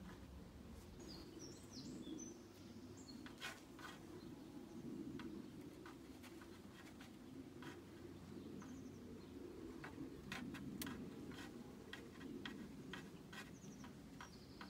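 Faint outdoor ambience: a low, steady background hum with scattered small ticks. Small birds chirp briefly about a second in and again near the end.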